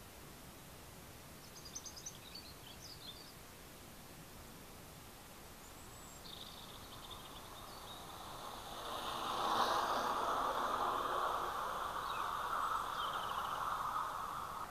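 OO gauge model train running past on garden track: its motor and wheels make a steady running noise with a faint high whine, growing from about six seconds in and loudest from about ten seconds as it passes. A few bird chirps about two seconds in.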